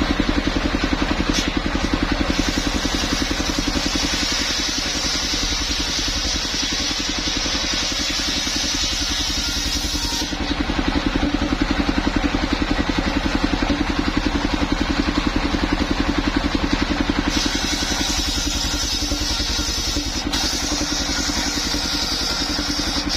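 Engine of a mobile circular sawmill running steadily with a rapid even pulse, while the circular saw blade cuts through coconut trunk twice, adding a high hiss from about 2 to 10 seconds in and again from about 17 seconds in.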